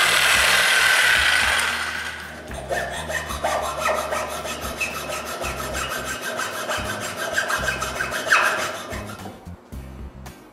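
Jigsaw blade cutting an angle into an aluminum extrusion: a loud sawing hiss for the first two seconds, then a quieter, rapidly pulsing rasp that stops about nine seconds in.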